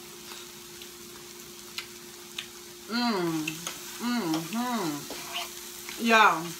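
Salmon and vegetables sizzling in a frying pan while a fork stirs and clicks against it, over a steady low hum. In the second half a woman's voice hums 'mmm' four times, the loudest sounds, the way someone does after tasting food.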